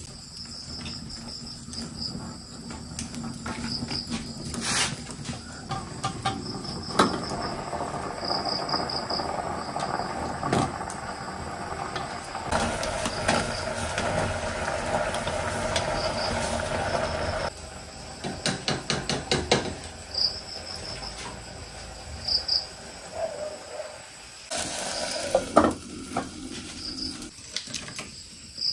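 Insects chirping in short, repeated high trills, with intermittent clicks, knocks and a stretch of hissing noise from handling or work nearby over them.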